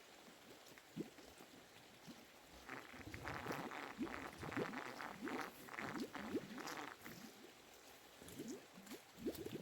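Water splashing and pouring in bursts, with short gurgling bubble sounds, busiest in the middle and again near the end.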